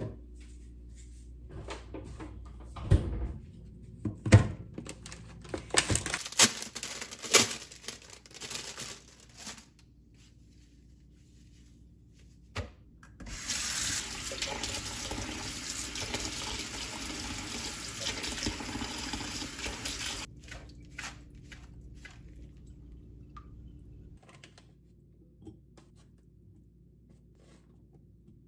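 Kitchen sink tap running for about seven seconds midway as perilla leaves are rinsed in a plastic colander. Before it come sharp knocks, clicks and rustles of plastic-wrapped groceries being handled and set on a stone counter, and after it only a few faint ticks of handling.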